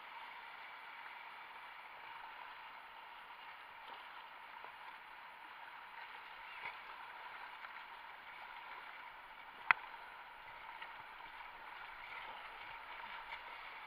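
River water running and splashing around a kayak as it moves downstream, a steady wash, with one sharp knock about ten seconds in.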